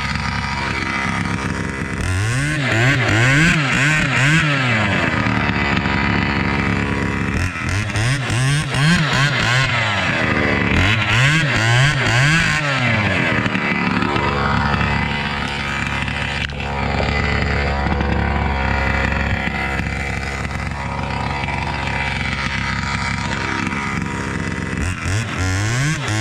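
Chainsaw with a modified exhaust running, revved up and down about once a second in several spells, with steadier running in between.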